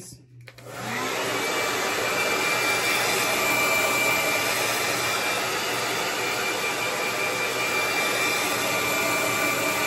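Handheld hair dryer running steadily, blowing on a freshly spread layer of lace-wig glue to dry it; it spins up about half a second in, keeps a thin high whine over the rush of air, and cuts off at the end.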